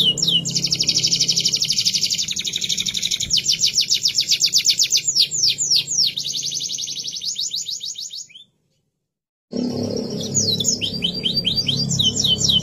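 Domestic canary singing fast rolling trills, runs of rapidly repeated high notes that change speed from phrase to phrase. The song drops out to silence for about a second, then resumes with a few downward-gliding notes and more trills.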